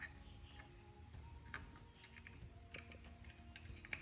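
Faint, scattered light clicks and taps of small metal parts, a folding bike's stem hinge and hinge pin being handled and fitted together, over a low steady hum.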